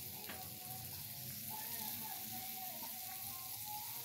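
Steady hiss of room tone, with faint wavering tones in the background.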